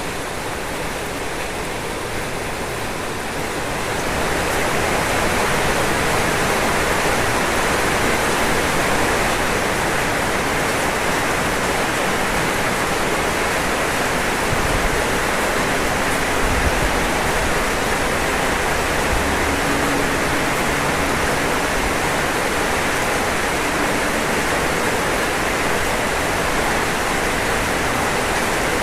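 Rain falling steadily on a roof, a dense, even hiss that grows heavier about four seconds in and then holds.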